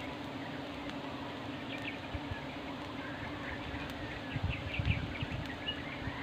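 A swarm of wild honeybees buzzing in a steady hum as they fly around their smoked nest, with a few low thumps about four to five seconds in.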